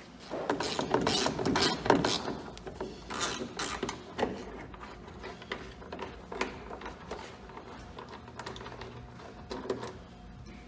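Ratchet wrench clicking in quick runs as headlight mounting bolts are worked loose, loudest in the first couple of seconds and then in shorter, sparser bursts, with scattered knocks and sleeve rubbing close by.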